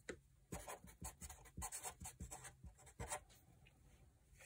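Felt-tip marker writing on paper on a clipboard: a quick run of short scratching strokes that stops about three seconds in.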